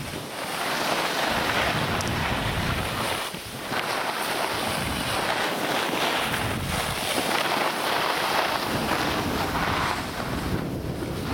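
Wind rushing over the microphone mixed with the hiss and scrape of skis on packed snow, a steady rushing noise that swells and eases as the skier turns.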